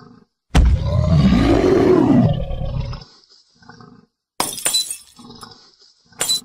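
A dinosaur roar sound effect lasting about two and a half seconds, its pitch rising and then falling. Later come two sharp crashes of glass cracking and shattering, with small crackles between them.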